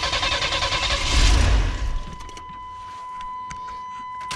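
A 1993 Chevy Astro's 4.3-litre V6 cranks on a shot of starter fluid and catches. It runs briefly, loudest about a second in, then dies about two seconds in. The owner blames the fault on fuel not getting through the spider injection.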